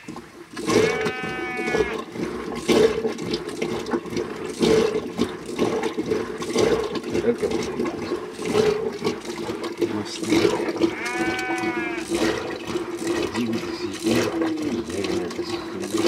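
Traditional clay-pot butter churn, its wooden churning stick spun back and forth by a pulled rope, sloshing the liquid inside in a regular rhythm about once a second. Two short high-pitched cries cut in, about a second in and again about eleven seconds in.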